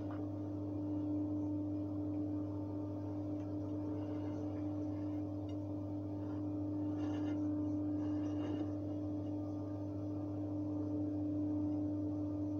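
A steady hum with one constant droning tone, unchanging throughout, with a few faint light ticks about two-thirds of the way in.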